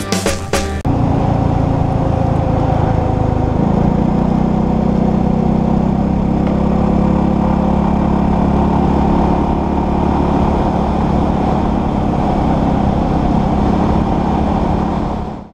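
Suzuki Burgman 400 scooter's single-cylinder engine running steadily at road speed, recorded from a camera on the scooter with wind noise over the microphone; the engine note settles onto a steadier, higher hum about three and a half seconds in. The tail of a music track ends in the first second.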